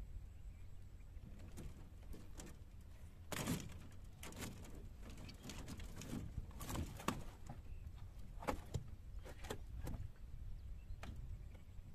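Irregular knocks, clicks and light rattles of a wire-mesh cage fish trap being handled in a wooden boat, with the loudest cluster about three seconds in.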